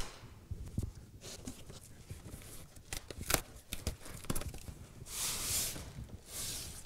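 Sanding boards clicking and knocking on a workbench and a cardboard shipping box being handled, then cardboard scraping and tearing about five seconds in as the box is opened.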